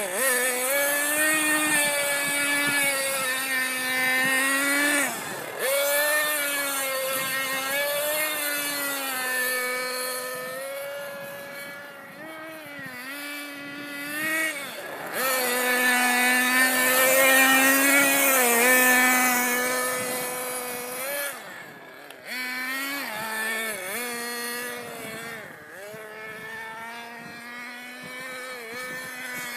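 Bycmo Serie Seven 1/7-scale nitro RC car's ZX21 two-stroke glow engine running at high revs as the car drives. Its pitch dips and climbs back several times as the throttle is eased off and opened again, and it is loudest a little past halfway.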